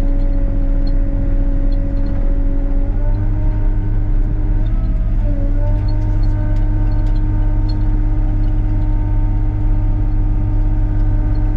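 Excavator's diesel engine and hydraulic pump running under load as the machine works, a steady drone and hum. The pitch steps up about three seconds in, then dips and rises again around five seconds as the load changes, and holds steady after that.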